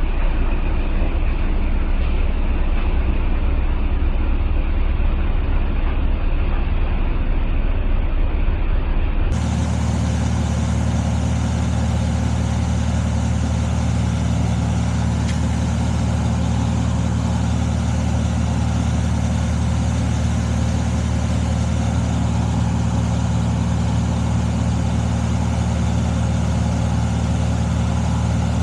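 Heavy engine running steadily. About nine seconds in the sound changes abruptly to a clearer, even engine hum at a steady pitch.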